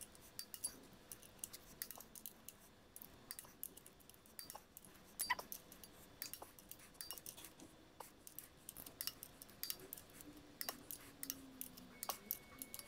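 Faint, irregular clicking of a ratchet and torque wrench turning the flywheel bolts as they are tightened to torque.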